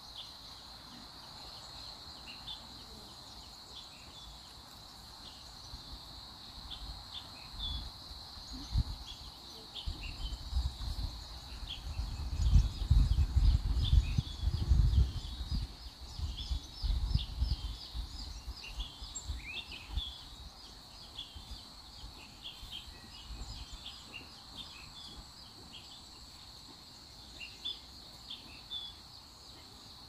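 Outdoor rural ambience: a steady high-pitched insect chirring with many short bird chirps over it. A low rumble swells through the middle and is the loudest part, just before halfway.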